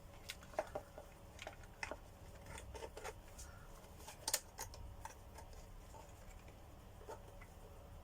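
Scattered small clicks and taps of plastic vacuum-cleaner parts being handled and fitted together, the sharpest one about four seconds in.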